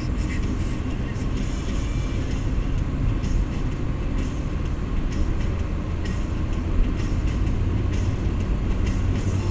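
Car driving along a paved road: steady low engine and road rumble from the moving car.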